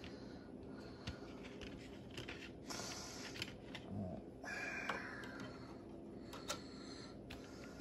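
Faint handling sounds of CDs being loaded into a CD changer's disc tray: scattered light clicks and two short rustles.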